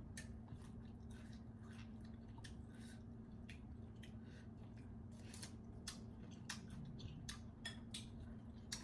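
Spoon stirring and scraping wet pounded apple salad in a glass bowl: faint, irregular soft clicks and squishes over a low steady hum.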